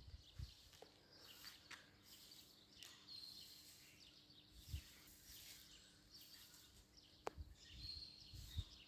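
Near silence: faint outdoor background with a couple of faint high chirps and a single sharp click about seven seconds in.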